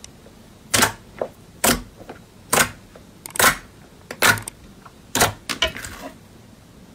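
Slime being pressed and poked, giving a crisp pop or click about once a second, with a few smaller pops in between.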